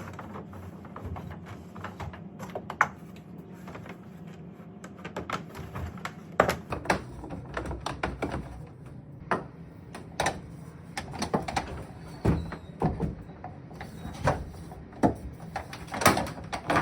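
Irregular knocks, taps and clatter from sauna parts being handled and worked on, with a few louder knocks from about six seconds in and again near the end.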